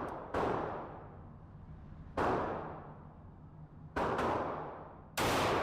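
Five gunshots from a handgun at a shooting range, each ringing out and fading over about a second. The first comes just after the start, the next about two seconds in, two more follow close together about four seconds in, and the loudest comes near the end.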